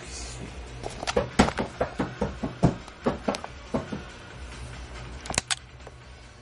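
A quick run of sharp clicks and knocks, about a dozen in three seconds, then two more clicks near the end, from hands working at the end of a pool pump motor around its centrifugal switch. A low steady hum runs underneath.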